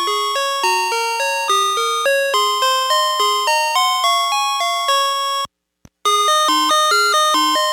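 VTech Alphabert toy's electronic sound chip playing a simple chime-like jingle through its small speaker, one beeping note after another at about three notes a second. About five and a half seconds in it cuts out for half a second with a click, then a tune starts again.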